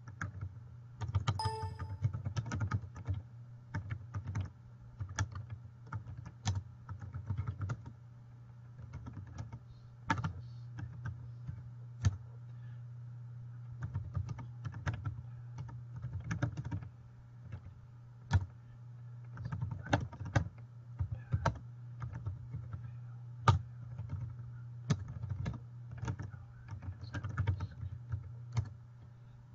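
Typing on a computer keyboard: irregular keystrokes in short bursts with pauses between, over a steady low hum.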